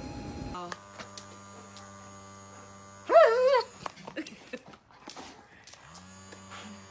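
A dog gives one short, wavering whine about three seconds in, over a steady low electrical hum.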